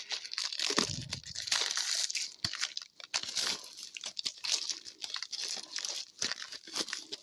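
Crinkling and tearing of packaging as a sealed trading card hobby box is opened, in a rapid, irregular crackle of small snaps.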